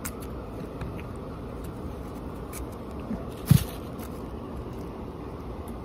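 Faint scattered clicks of a knife peeling and cutting green mango at a table over steady background noise, with one sharp knock about three and a half seconds in.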